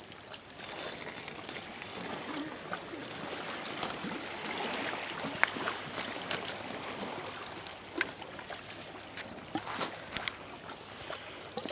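Sea water lapping and sloshing against shore rocks and the ladder, a steady wash that swells a little a few seconds in, with scattered faint clicks.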